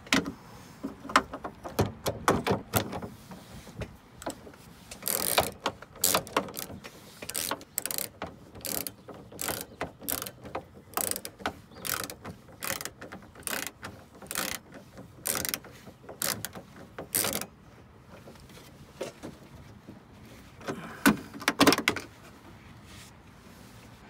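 Socket ratchet clicking in quick runs as it loosens the bolts holding a car's exterior door handle, with a lull of a few seconds near the end before one last short run of clicks.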